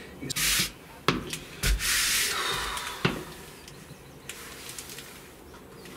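Utility knife blade scraping old paint and rubbery sealant out of the gap around a deck inspection hatch lid: a short scrape about half a second in, a longer scrape around two seconds in, with a few sharp clicks of the blade between strokes.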